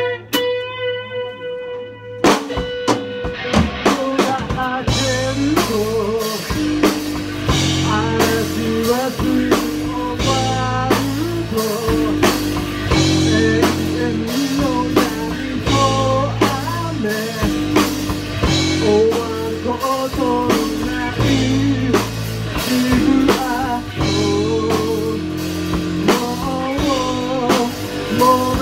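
Live band playing a rock ballad: an electric guitar rings alone at first, then drums and bass come in about two seconds in, and a man sings lead over them from about five seconds in.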